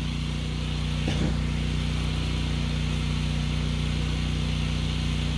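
Pressure-washer engine running steadily at a constant speed, a low, even hum.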